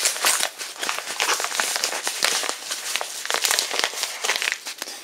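Yellow padded paper mailer being handled and squeezed, crinkling in a dense run of irregular crackles.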